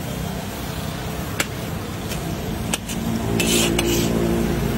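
Long metal spatula scraping and clicking against a large iron kadhai as onions and curry leaves fry in oil, over steady street traffic. From about three seconds in, a motor vehicle's engine hum grows louder.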